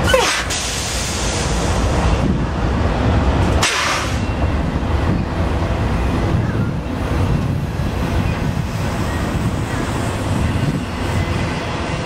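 Norfolk Southern freight train rolling past: a steady rumble of railcars on the track, with a brief sharp noise at the start and another about four seconds in.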